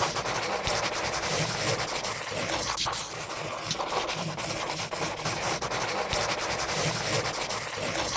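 Rapid scribbling of a pen on paper, a continuous dense scratching and rubbing made of many quick strokes.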